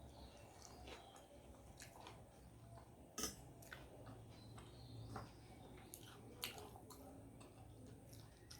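A person chewing a mouthful of rice and curry close to the microphone: faint wet mouth clicks and smacks, with one sharper click about three seconds in.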